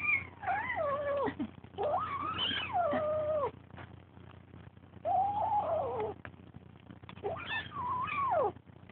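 Domestic cat giving about four long, drawn-out meows, each rising and falling in pitch and lasting a second or more, with short pauses between them.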